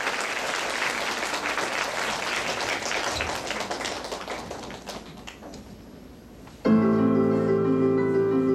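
Audience applause that dies away over about five seconds. Near the end, music with held, ringing notes starts abruptly.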